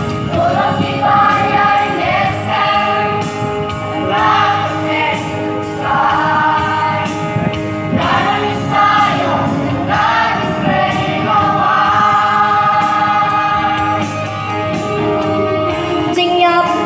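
A choir singing a gospel hymn in sustained, held phrases.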